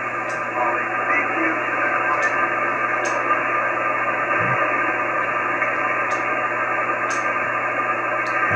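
Icom IC-9700 on single-sideband receive, playing steady static from the XW-2B satellite's linear transponder downlink, with a few faint steady tones in the hiss. Light clicks come roughly once a second.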